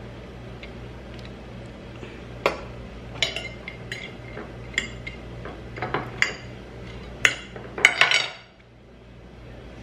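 A metal fork clinking and scraping against a glass plate as pieces of grilled chicken are turned in mustard. The clinks come every second or so, with the loudest cluster near the end, over a steady low hum that stops shortly before the end.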